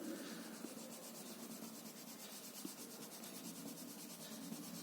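Faint, steady scratching of a colour being rubbed back and forth across paper to colour in a picture.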